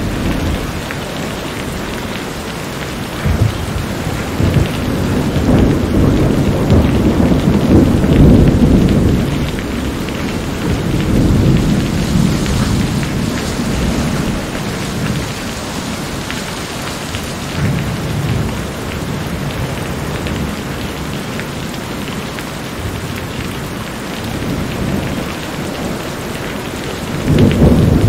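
Steady rain with thunder rolling in several long, deep swells. The loudest swell comes about eight seconds in, and another starts just before the end.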